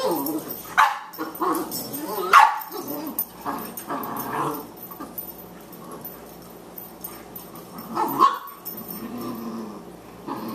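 Boxer puppy and adult boxer play-fighting: a string of short barks and growls, loudest about two seconds in. The middle few seconds are quieter, then another bark and a low growl come near the end.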